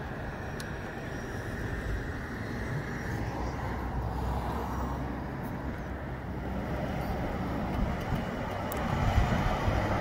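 Gusty outflow wind from a rain shower rushing through trees, with a low rumble, growing louder toward the end.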